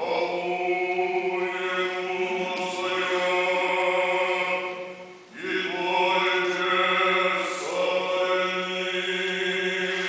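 Orthodox liturgical chanting, sung in two long sustained phrases with a short break about five seconds in.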